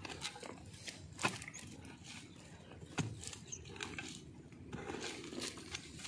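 Scraping and rustling in dry grass and loose soil at a snake burrow's entrance, with sharp knocks about one second and three seconds in.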